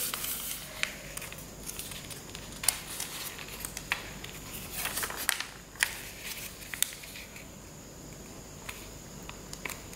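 A sheet of A4 paper being handled and folded, rustling softly with scattered sharp crackles as fingers press and crease the folds, fewer in the last few seconds.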